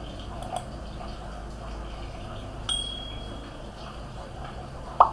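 Steady background hum and hiss, with one short high ding about two and a half seconds in and a sharp click near the end.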